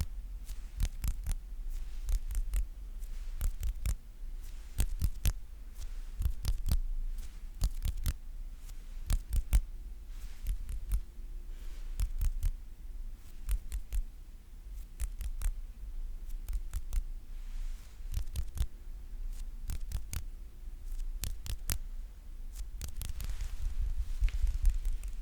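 Close-miked ASMR sticky sounds: something repeatedly pulled off a sticky surface, making an uneven run of sharp, crackly clicks and pops, some in quick clusters.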